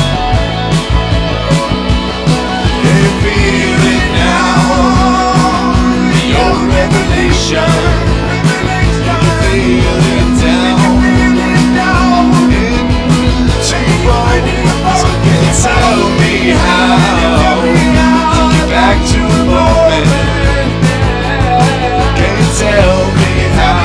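Rock song playing, in a stretch with no sung words. A wavering lead line runs over long held low notes.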